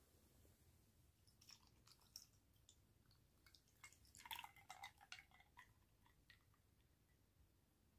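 Milk poured from a glass jug into a glass mug, very faint: a scatter of soft ticks and splashes, thickest around four to five seconds in, against near silence.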